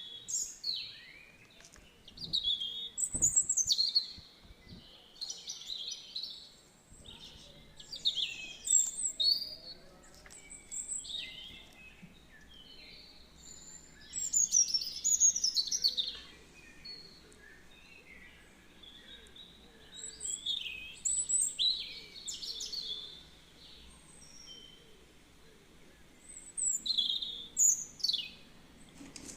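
Songbirds chirping and singing in bursts of quick high notes, some sliding downward, with short pauses between the bursts.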